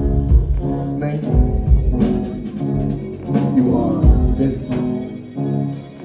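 A rock band playing live, with a drum kit, bass and keyboards, heard from among the audience.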